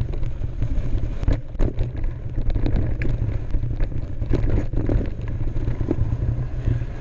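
Wind buffeting the microphone in a steady low rumble, with scattered clicks and rattles from a mountain bike rolling over a dirt and rock trail.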